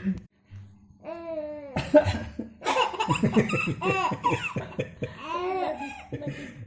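A small child's put-on cough, imitating the cough of an old person, with a sharp cough about two seconds in, followed by a run of laughter.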